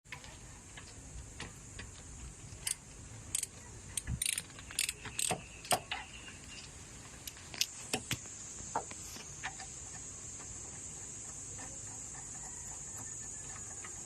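Metal tools and engine parts clinking and clanking during an engine teardown: a run of sharp, irregular clinks for several seconds, thinning out about two-thirds of the way through, over a steady hiss.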